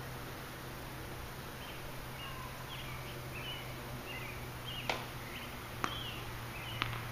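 Three sharp distant tennis ball strikes about a second apart, starting near the middle, over birds chirping and a steady low hum.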